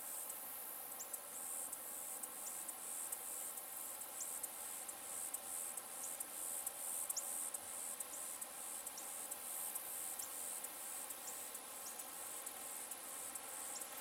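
Insect chorus: a steady, high-pitched, rapidly pulsing buzz, with short high falling chirps scattered through it.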